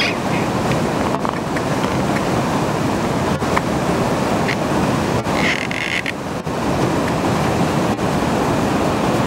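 Rushing water of a river running open beside the ice, a steady roar.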